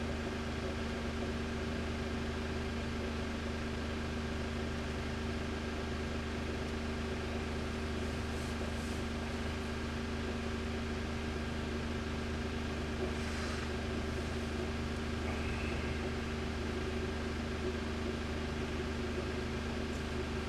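Steady mechanical hum with a few constant tones over a soft hiss.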